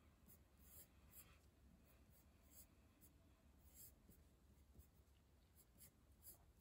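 Faint scratching of a pencil drawing on paper: a string of short strokes at irregular intervals.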